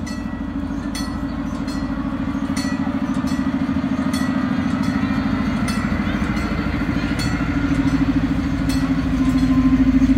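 Zooliner miniature train passing, its engine drone growing louder toward the end. Sharp ringing strikes about once a second come from the crossing signal's bell.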